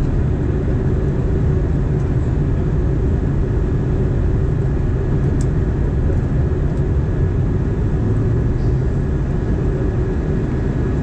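Steady rumble of engines and airflow inside an Airbus A320 passenger cabin in flight, heard at a window seat beside the engine, with a faint steady whine above it.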